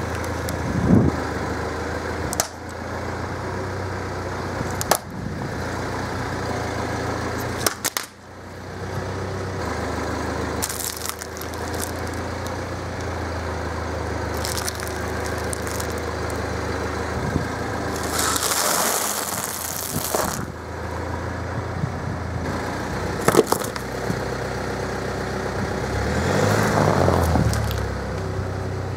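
Car running at a slow crawl, its engine humming steadily, while its tyre crushes small packages and boxes with a series of sharp cracks and crunches; near the end the engine rises and falls as the car moves.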